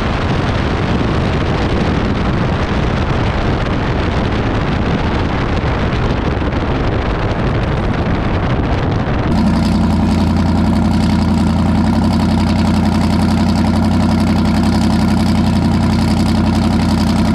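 A drag car rolls down the track with loud wind and road rush over its engine. About nine seconds in it cuts to the engine idling steadily at one high pitch: the throttle is stuck open, holding the idle at around 2300 rpm.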